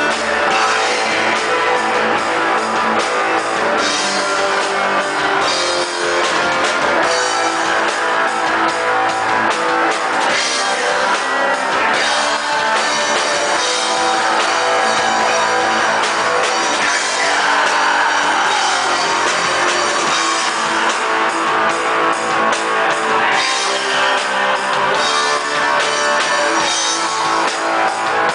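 Black metal band playing live: electric guitars and a drum kit, loud and unbroken.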